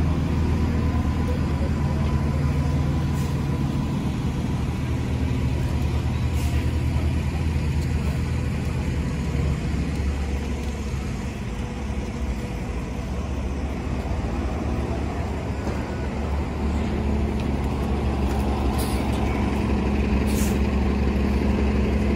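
City transit buses idling and pulling along the curb, a steady low engine drone, with short sharp air hisses from their air brakes about four times, at about 3 and 6 seconds and twice near the end.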